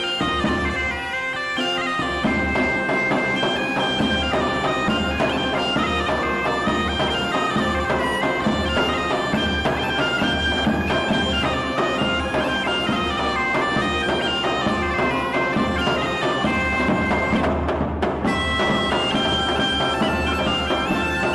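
Background music: a bagpipe tune played over a steady drone.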